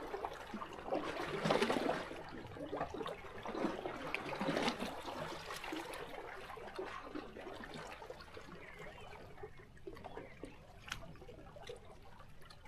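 Small sea waves lapping and sloshing against shoreline rocks, swelling into splashes about a second and a half in and again near five seconds, then settling to a quieter trickle with a few sharp clicks near the end.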